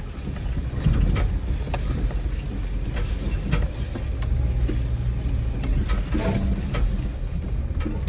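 Jeep running slowly along a narrow leaf-covered dirt trail: a steady low engine and drivetrain rumble, with many scattered sharp clicks and snaps from the tyres on leaves and twigs and from brush against the body.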